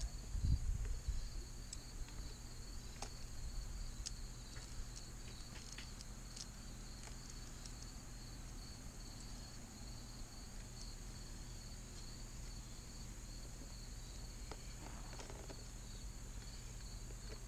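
Steady chirring of crickets, with a few faint clicks and knocks from the chainsaw's bar and chain being handled during the first seconds.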